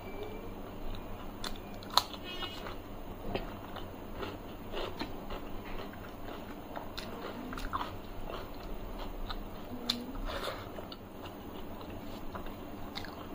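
Close-miked eating: a person chewing and crunching food by the mouthful, with many small wet clicks. There is a loud crisp bite about two seconds in and a smaller one near ten seconds.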